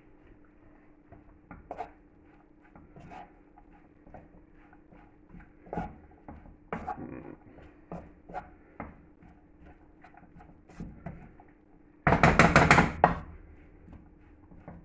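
Scattered light knocks and clicks of kitchen handling over a steady low hum, then about twelve seconds in a loud rush of noise lasting about a second.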